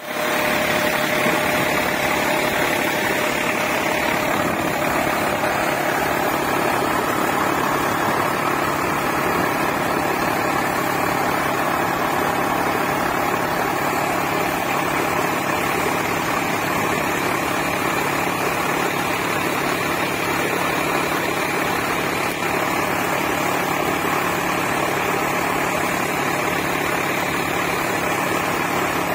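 Sonalika tractor's diesel engine running steadily, driving a PTO-operated 4x3 high-head water pump through its power take-off, with the rushing hiss of the pump's water jet spraying out of the delivery pipe.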